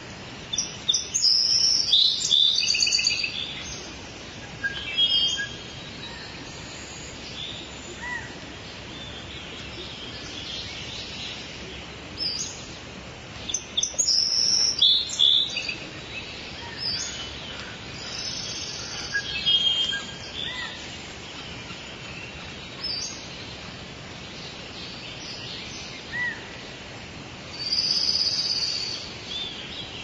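Rainforest ambience: birds chirping and singing in repeated bursts over a steady background hiss. The loudest bursts come about a second in, in the middle, and near the end.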